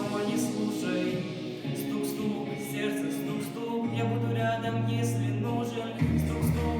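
Song with sung vocals over sustained synth or bass notes; the bass line steps down to a lower note about six seconds in.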